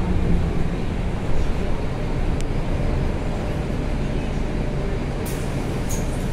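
Cabin noise inside a Mercedes-Benz O530 Citaro city bus: a steady low engine and running rumble, with a few light clicks or rattles about two and a half and five to six seconds in.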